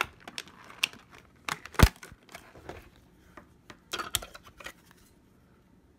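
Sharpie markers and their plastic pack being handled: a run of sharp plastic clicks and rattles, with one louder knock about two seconds in, then quiet for the last second.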